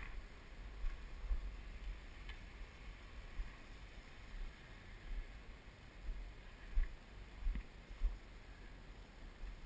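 Low, uneven rumble of wind and handling noise on a handheld action camera's microphone, with a few faint clicks and taps.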